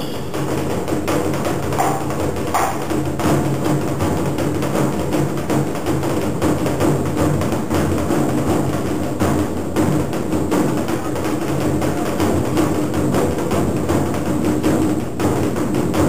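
Large hide drum on a wooden stand beaten with sticks by several players in a fast, dense, unbroken rhythm.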